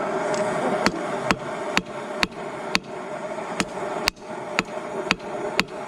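Steady hammer blows on a piece of hot rebar held in tongs, about two strikes a second, each with a short metallic ring. The blows begin about a second in.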